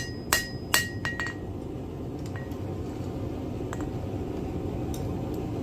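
Hand-hammer blows on hot iron stock over an anvil, about two and a half strikes a second, each with a bright ringing tone. Three sharp strikes come in the first second and a weaker one follows. Then the hammering stops, leaving a steady low background hum and a few faint ticks.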